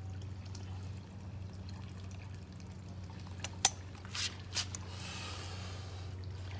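Water trickling over a steady low hum, with a sharp click about three and a half seconds in and a couple of brief scrapes just after.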